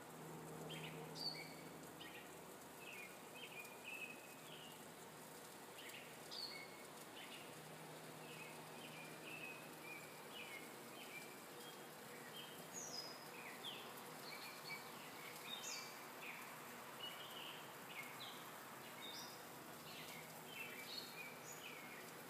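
Songbirds chirping and calling, short high notes following each other every second or so, faint over a steady outdoor hiss.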